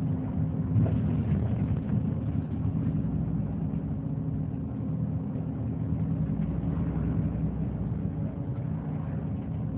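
Mitsubishi Fuso Aero Star (QKG-MP38FK) city bus's diesel engine running steadily at a low, even pitch.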